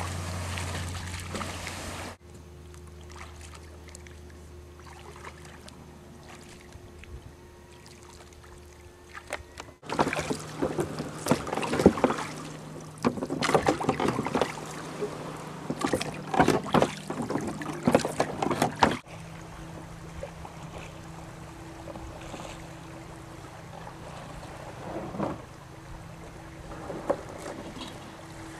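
Small wooden rowboat being rowed: irregular splashes of the oars and knocks in the oarlocks for several seconds in the middle, the loudest part. Before and after it are quieter stretches of lapping water and wind with a faint steady hum.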